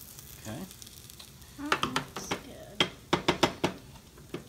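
Hot frying oil sizzling faintly in the pan just after the heat is turned off. A quick run of sharp clicks and taps comes in the middle as the fried fish is handled.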